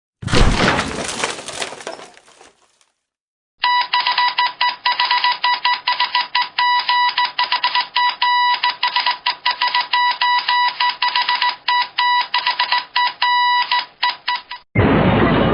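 A big crash fading out, followed by Morse code: a single high beep keyed on and off in rapid dots and dashes for about ten seconds. Near the end a different loud, noisy sound cuts in.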